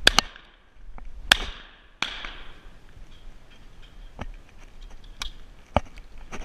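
Two shots from a 20-gauge side-by-side shotgun (Rizzini BR-550), one just after the start and the second about a second later, each with a short ringing tail, followed by a softer bang about two seconds in. Several small metallic clicks follow from about four seconds in.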